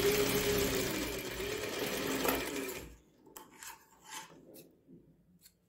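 Sewing machine running steadily for about three seconds as it stitches a seam through cloth, then stopping. A few faint short snips and rustles follow as tailoring scissors trim the thread and fabric.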